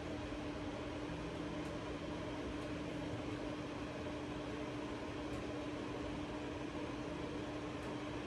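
Steady motor hum from a running machine, with one constant low tone and no change in level.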